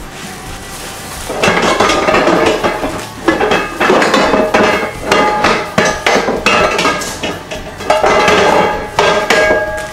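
Kitchen clatter: a quick run of loud knocks and clanks of metal pans and utensils with brief ringing, starting about a second in and going on until just before the end.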